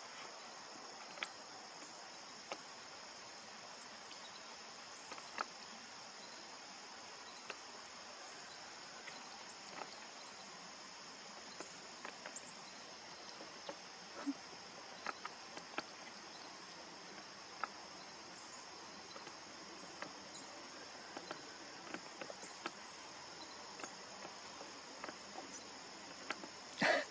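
A steady, high-pitched insect chorus, crickets trilling without a break, with scattered faint clicks.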